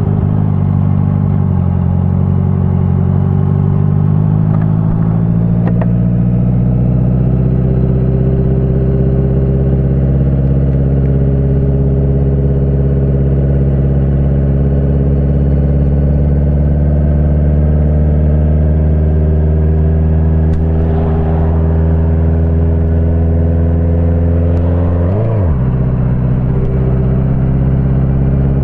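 Honda CBR650F inline-four engine running at a low, steady speed, its pitch climbing gently over the first several seconds and then holding. About 25 seconds in the engine note dips sharply and comes straight back up.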